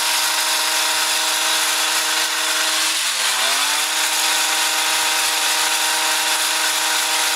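Two-stroke gas hedge trimmer running at high throttle. Its engine pitch dips briefly about three seconds in, then climbs back up.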